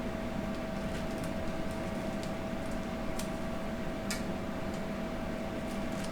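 Steady mechanical hum with one constant tone, over which come a few faint metallic clicks about a second apart as 4L60E transmission parts are handled.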